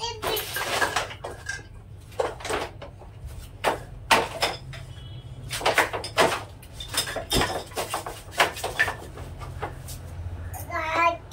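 Irregular clatter and rustle of plastic toys and a fabric suitcase being handled, a string of short knocks and scrapes, over a steady low hum. Near the end comes a short wavering baby's vocal sound.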